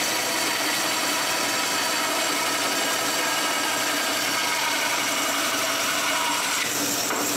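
Bandsaw running and cutting through wood, trimming off the excess of a glued wooden plug: a steady machine sound with a constant hum.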